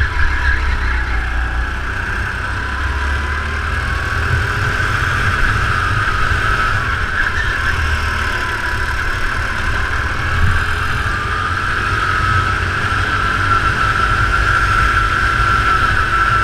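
Kart engine running hard under racing load, its pitch rising and falling with speed through the corners, over a steady low rumble from the onboard microphone.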